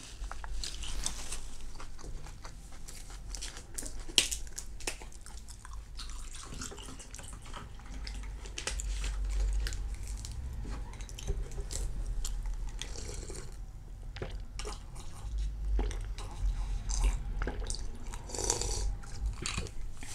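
Close-up chewing and biting of crispy rice pancake (banh xeo), with irregular crunches and mouth sounds and one sharp click about four seconds in.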